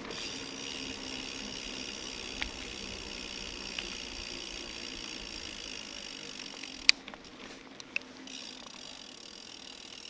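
Kellys Gate 50 bicycle's rear freehub ticking into a steady buzz as the bike coasts on smooth asphalt, over tyre noise. A sharp click about seven seconds in, and the buzz stops for about a second before returning.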